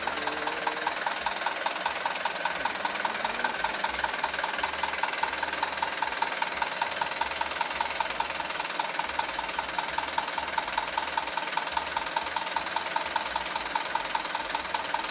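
Mitsubishi light truck's diesel engine idling steadily, with a quick, even ticking.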